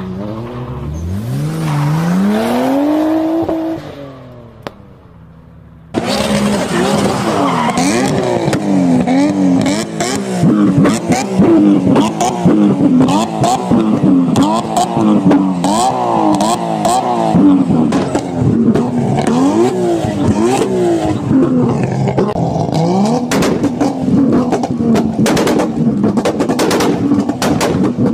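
Tuned car engine revving up, rising in pitch over the first few seconds, then after a short lull a tuned engine blipped hard in quick rising-and-falling revs, with a rapid crackle of exhaust pops and bangs that grows thicker near the end.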